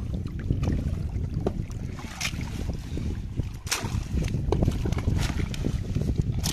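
Low, uneven rumble of wind on the microphone, with a few short sharp sounds, the clearest about two and about three and a half seconds in.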